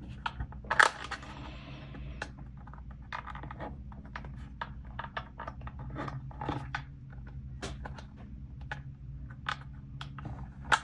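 Small plastic model-kit parts clicking and tapping as they are handled and test-fitted together, with a sharper click about a second in, over a steady low hum.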